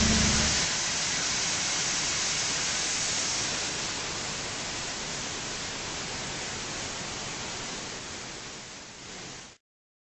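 Almond shelling and cleaning machinery running with kernels pouring over a sorting chute: an even hiss with no clear pitch that slowly dies away, then cuts off suddenly near the end. A low machine hum stops about half a second in.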